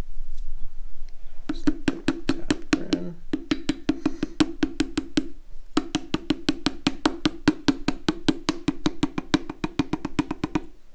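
Fast, even taps of a hammer handle on a piston crown, about six a second, driving the last piston of a Mitsubishi 4G63 short block down through a ring compressor sleeve into its bore. The tapping starts about a second and a half in and stops briefly near the middle.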